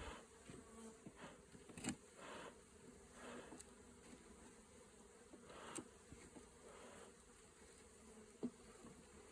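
Faint, steady buzzing of honeybees from an opened hive during an inspection, with a few light knocks about two, six and eight and a half seconds in.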